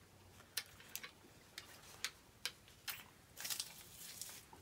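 Faint scattered clicks and taps of small metal candy tins and taffy pieces being handled in a box, with a brief rustle about three and a half seconds in.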